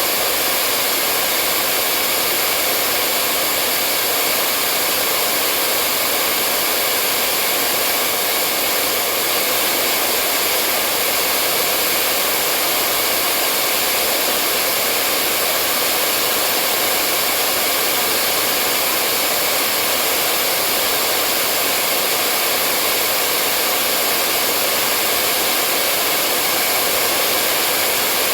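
Hair dryer running steadily on one setting, a constant airy whoosh with a faint whine and no change in pitch or loudness.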